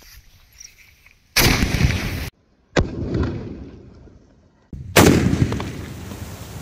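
Big sky-shot firework exploding beneath a heavy stone: a loud blast about a second and a half in that cuts off abruptly, a sharp bang near three seconds in that dies away over a couple of seconds, and a third loud blast about five seconds in.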